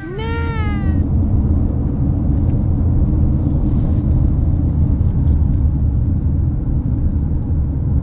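A toddler's high squeal that rises and falls, ending about a second in, then the steady low rumble of road noise inside a moving car.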